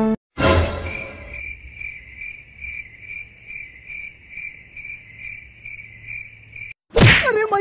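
Crickets chirping: a high chirp pulsing about two to three times a second that cuts off suddenly near the end, with a short burst just before it starts. A different loud sound with wavering pitch begins right at the end.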